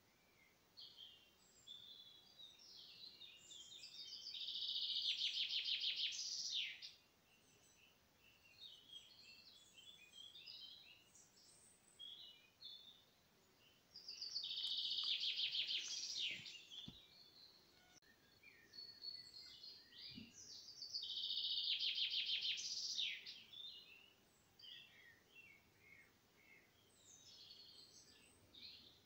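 Small songbirds calling: three loud, rapid trilled song phrases, each two to three seconds long, come about four seconds in, midway and about three-quarters through, with short high chirps scattered between them.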